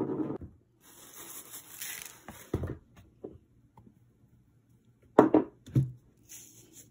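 Seasonings shaken from spice jars onto raw ground beef in a bowl: a short rattling hiss, then a few sharp knocks, the loudest two close together near the end.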